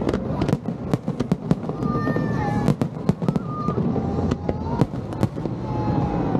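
Aerial fireworks bursting in quick succession, several sharp bangs and crackling pops a second over a steady rumble.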